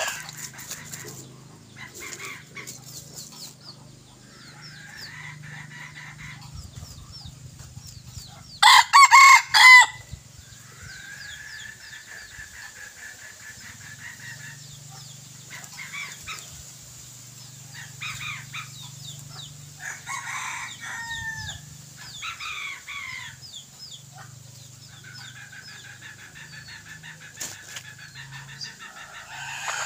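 Red junglefowl decoy roosters: one loud, short crow about nine seconds in, with softer clucking calls scattered before and after. Faint high chirps and a low steady hum sit underneath.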